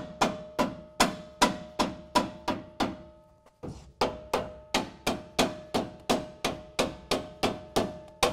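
Rubber mallet striking a steel bumper mounting bracket over and over, about two to three blows a second, to knock it onto the truck's frame horn in an ultra-tight fit. Each blow gives a short metallic ring. The blows pause briefly about three seconds in, then resume.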